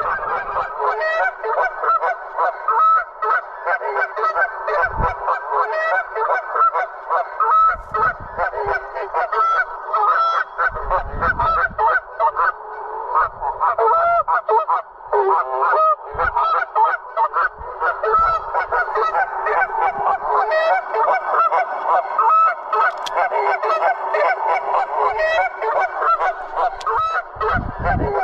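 A flock of geese honking continuously, with many calls overlapping into a steady clamour. Now and then a low rumble of wind or handling sits under it.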